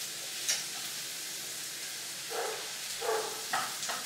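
Mushrooms and vegetables sizzling in a frying pan, with a steady hiss throughout. A utensil clicks against the pan about half a second in and scrapes it a few times in the second half as the food is stirred.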